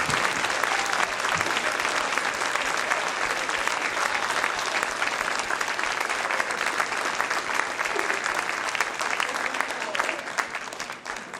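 Audience applauding: dense, steady clapping of many hands that thins out near the end.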